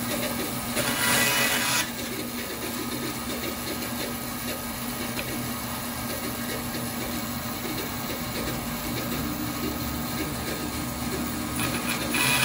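Band saw running with a steady motor hum, its blade cutting through a SpectraPly pen blank about a second in and again near the end; each cut is louder and hissier than the idle hum.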